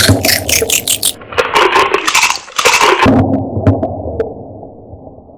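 Crunchy food being chewed close to the microphone, in quick crunching bursts that thin out to a few scattered crunches and then fade.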